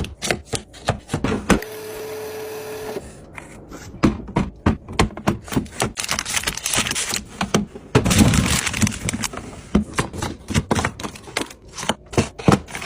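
Packaged food and drink containers being set into a fridge: a quick run of small knocks, clicks and clatters of plastic and glass. A steady tone sounds for over a second near the start, and a denser rattling clatter comes about eight seconds in.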